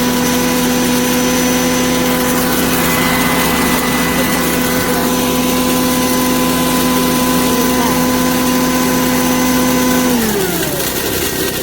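LSYSGSB electric grain mill's motor running with a steady hum. About ten seconds in it is switched off and winds down, its pitch falling.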